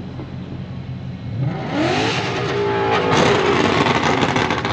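A car engine revving hard about a second and a half in, its pitch rising, then staying loud to the end.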